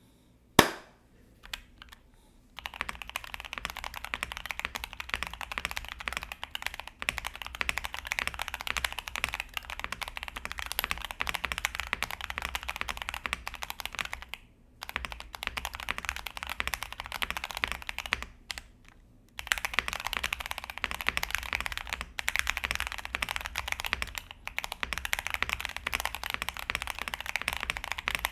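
Fast typing on a custom mechanical keyboard with stock KTT Hyacinth linear switches on a POM plate, with tape mod and polyfill, giving a dense run of key clicks with brief pauses. A single sharp loud click comes about half a second in, before the typing starts.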